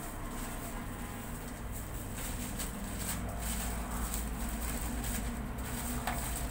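Gas stove burner running under an aluminium frying pan of oil: a steady low rumble with a faint hiss above it.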